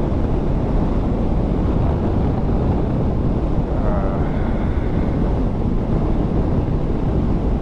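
Wind rushing over the microphone on a motorcycle at road speed, a steady loud rumble that buries the engine of the 2019 Honda Africa Twin.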